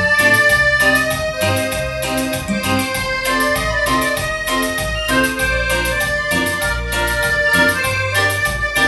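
Piano accordion playing a melody over held chords, with a backing of bass notes and a steady drum beat.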